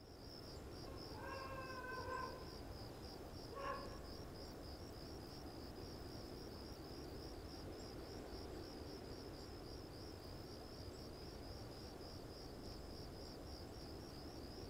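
Crickets chirping faintly and steadily, about four chirps a second, over a low background hum. Two short animal calls cut in, one about a second in and a shorter one near four seconds.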